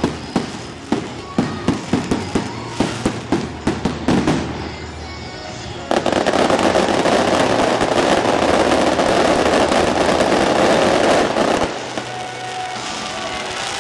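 Aerial fireworks bursting in quick succession, several sharp bangs a second. About six seconds in they give way to a dense, continuous wash of crackle from a barrage, which drops off about twelve seconds in.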